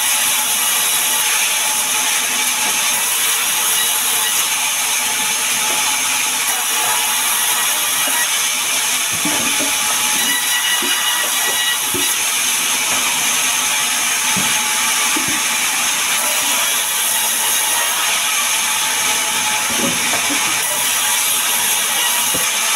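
Sawmill band saw running and cutting lengthwise through a sengon log: a continuous high hiss of the blade in the wood, with a few dull knocks in the middle of the stretch.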